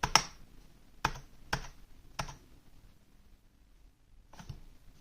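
Keys pressed one at a time on a Rii RK900 "mechanical feel" wired keyboard, giving about six separate clacks. A quiet gap of about two seconds comes before the last one.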